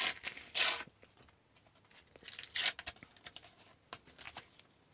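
Several short bursts of paper tearing and rustling as sticker packs and stickers are handled, the loudest about half a second in.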